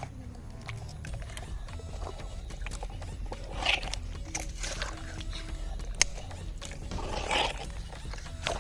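Handling noises: a few sharp clicks and two short rustles, about halfway and near the end, over a low steady hum.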